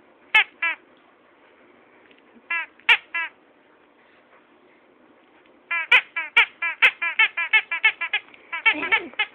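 Rubber squeaky toy being squeezed: a few separate squeaks, then a quick run of squeaks, about five a second, over the last few seconds.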